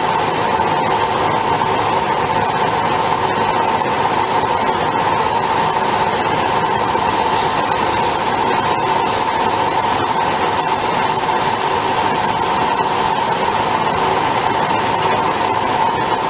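High-speed CNC drilling machine's spindle driving a twist drill into a metal plate: a steady machining noise with a constant high whine over it.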